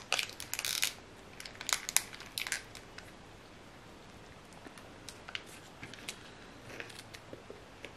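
Plastic protein-bar wrapper crinkling as it is handled and peeled back. A burst of crackles comes over the first three seconds, then a few scattered faint crackles.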